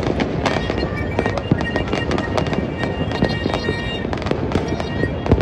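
Fireworks and firecrackers going off all over a city: a dense, unbroken crackle of many pops and bangs at a steady level, with no single blast standing out.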